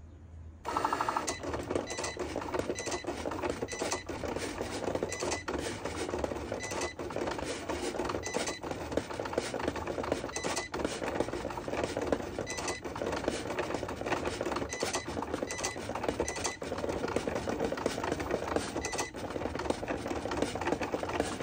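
Cricut cutting machine cutting a sheet of gold vinyl: its motors whir as the blade carriage moves back and forth and the mat is fed, with short chirps and brief pauses as it changes direction. It starts about a second in.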